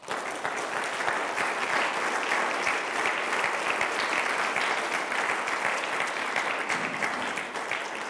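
Audience applauding, a dense patter of many hands clapping that starts at once and begins to thin out near the end.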